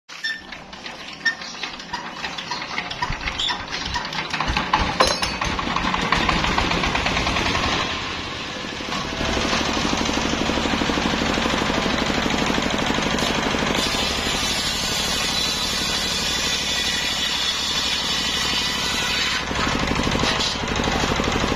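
A hand-cranked single-cylinder stationary diesel engine starts: uneven firing beats speed up over the first several seconds until it catches and settles into steady running. It then drives a belt-driven table circular saw, whose blade cuts sengon logs in the later part.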